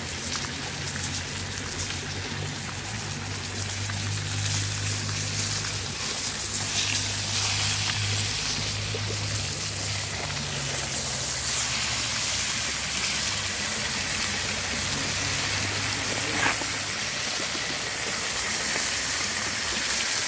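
Tilapia frying in hot oil in a skillet over an open wood fire: a steady sizzle with a few sharp crackles.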